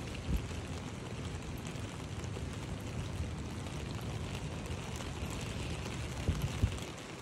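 Steady hiss of rain falling on a wet footbridge, with a few short low thumps about a third of a second in and near the end.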